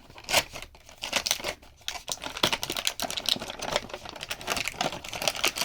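Packaging of a small earbuds box being handled and opened by hand: irregular crinkling and rustling with small clicks and taps.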